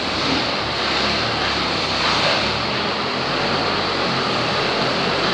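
Engine of a Pauselli 700 hydraulic pile driver running steadily as the machine moves, with no hammer blows.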